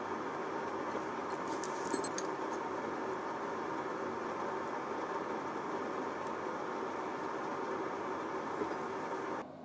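Steady background hiss of workshop room noise, with a few light metallic clinks about one and a half to two seconds in as steel tube offcuts and a steel square are handled. The hiss drops away sharply just before the end.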